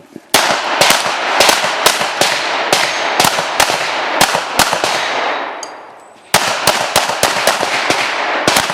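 Pistol shots fired in rapid strings, about two to three a second, each with a ringing tail. After about four and a half seconds the firing stops for roughly a second and a half, a break for a magazine change. It then resumes at a quicker pace.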